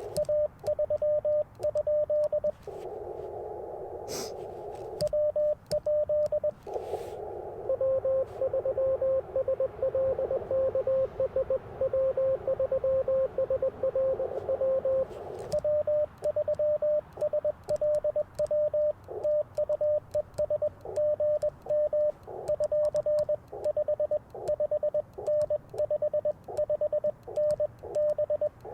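Morse code (CW) on an Icom IC-705 transceiver on the 30-metre band. The operator's own keyed sidetone beeps in quick dots and dashes at a steady pitch. It alternates with stretches of hissy band noise from the receiver's narrow filter, in which another station's weaker, slightly lower-pitched Morse can be heard for several seconds. Faint clicks from the Morse paddle run along with the keying.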